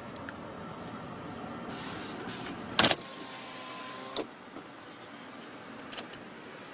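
Car power window motor running for about three seconds, ending in a sharp knock, followed by a faint steady whine and a couple of lighter knocks.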